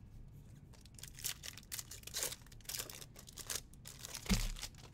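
A baseball card pack's foil wrapper crinkling and tearing as it is ripped open by hand, in a run of short crackles, with a thump near the end.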